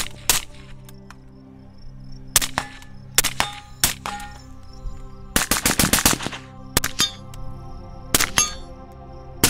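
Suppressed AR-style rifle with a 12.5-inch LMT barrel firing: spaced single shots, and a quick string of about eight shots a little past the middle. Background music plays underneath.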